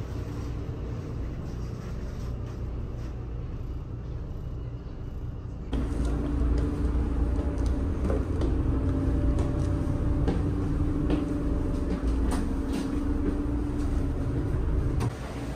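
Passenger ferry's engine rumbling steadily, heard inside the boat. About six seconds in it gets louder and a steady hum comes in, with scattered light clicks and knocks over the rumble.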